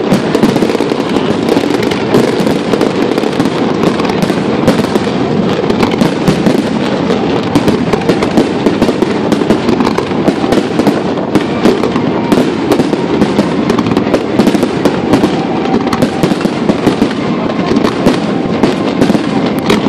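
Fireworks display: a dense, unbroken barrage of rapid bangs and crackles.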